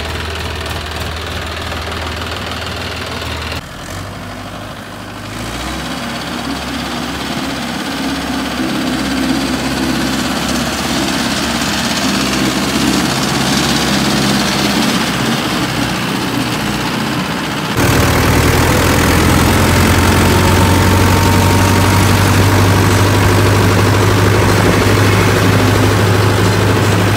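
Diesel farm engines running steadily in a run of cut-together clips: a Standard combine harvester's engine first, then a Mahindra Yuvo tractor. In the last part the sound is a louder, even tractor engine hum heard from the driver's seat while driving on the road.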